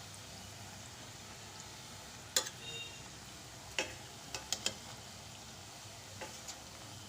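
Oil sizzling steadily as poha (flattened rice) snack logs deep-fry in a pan, with a handful of sharp clicks of a utensil against the pan from about two seconds in as the pieces are turned.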